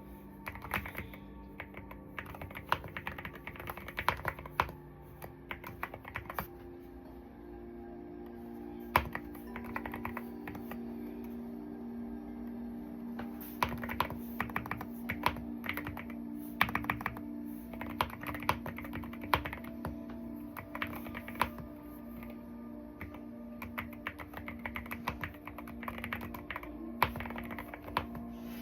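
Typing on an Akko wooden mechanical keyboard: key clacks in quick bursts with short pauses between them, over soft background music with held notes.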